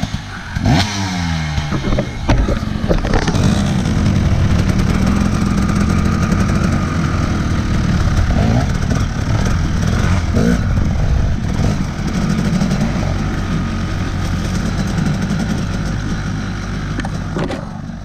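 Dirt bike engine revving up sharply as the bike pulls away, then running hard and steady under load along a rough track, with a few knocks and clatter from the bike over the bumpy ground in the first few seconds.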